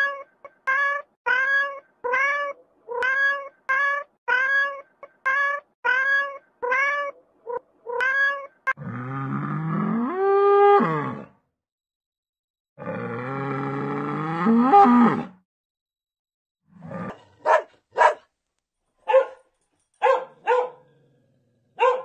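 A cat meowing over and over, about two short meows a second. Then cows mooing twice, two long low calls. Then a run of short dog barks.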